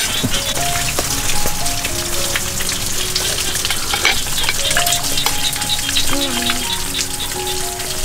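Steady, dense crackling hiss full of tiny clicks, under soft background music with a slow melody.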